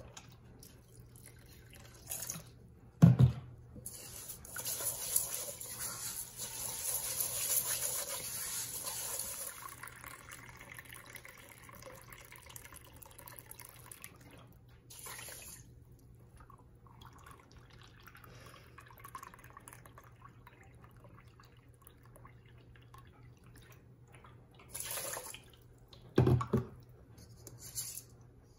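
Rice being washed in a metal pot: water runs and splashes into the pot for several seconds, then quieter sloshing as the grains are swished about by hand. Two dull knocks of the pot sound, about three seconds in and near the end.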